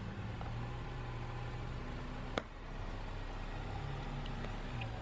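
Car running slowly with a steady low engine hum and tyre noise on concrete as it rolls against a squishy toy, with one sharp click about two and a half seconds in.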